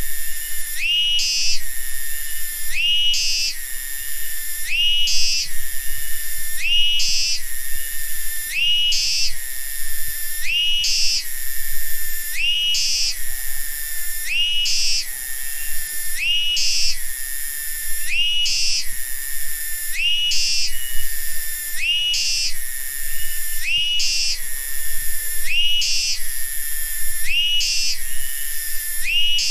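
Cicadas calling: a continuous high-pitched drone, with a rising, whistle-like call that repeats about every two seconds.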